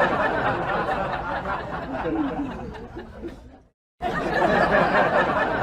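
Several people chattering and laughing together. It cuts out briefly a little before four seconds in, then resumes.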